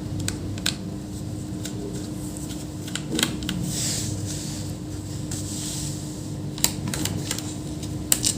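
A few scattered light clicks and a soft scrape about halfway through, from a screwdriver and small screws being handled while a laptop's bottom cover is unscrewed, over a steady low hum.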